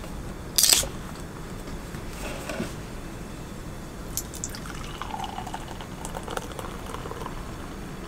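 Beer opened with a short, sharp hiss under a second in, then poured out, with liquid splashing and fizzing.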